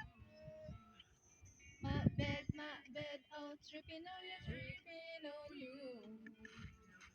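Background music with a singing voice carrying a melody.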